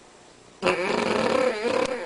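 Cavalier King Charles Spaniel snoring: one loud snore lasting about a second and a half, starting about half a second in, its pitch wavering as it goes.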